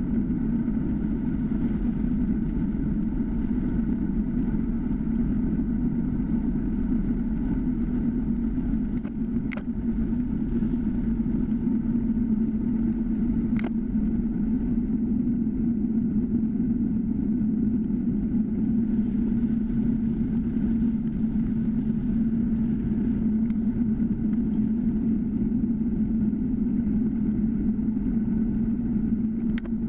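Steady rumble of wind and road noise picked up by a handlebar-mounted action camera on a time-trial bike rolling along asphalt, with a steady hum low in pitch. Two brief sharp clicks sound near the middle, about four seconds apart.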